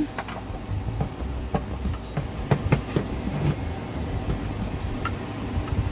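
Hand screwdriver driving a wood screw into a wooden tray and dowel: a run of irregular clicks and creaks as the screw turns, with knocks from handling the wood.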